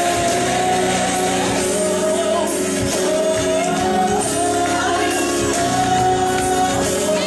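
Gospel music: a song with long held sung notes over a steady instrumental backing.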